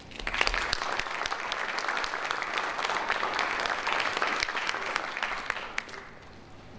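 Audience applauding, starting at once and dying away about six seconds in.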